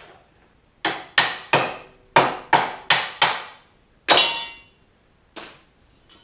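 A hammer striking metal about eight times in quick, uneven succession, each blow ringing, then one lighter blow about a second later: knocking an old carbide runner off a snowmobile ski.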